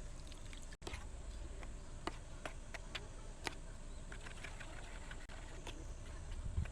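Irregular light clicks and taps, a few louder ones scattered through and more of them in the second half, over a steady low rumble.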